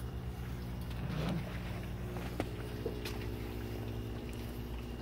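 Steady low machine hum, with a couple of light clicks.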